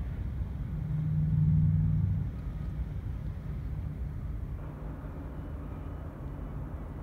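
Steady low outdoor rumble that swells louder, with a low hum in it, from about one to two seconds in.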